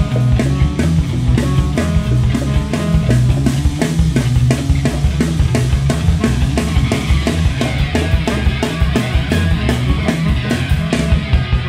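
Instrumental rock band recording: a drum kit playing dense, rapid hits over bass and guitar. About halfway through, a bright sustained layer comes in higher up.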